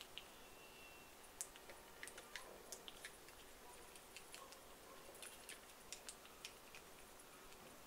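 Near silence with scattered faint, sharp clicks, most of them in two clusters, from fingers handling the small plastic battery boxes of LED lanyards and pressing their switches.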